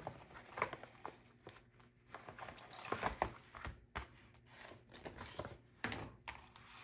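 Clear plastic kit envelope being handled and a stack of paper sticker packs slid out and laid on a table: soft plastic and paper rustling with a few light taps.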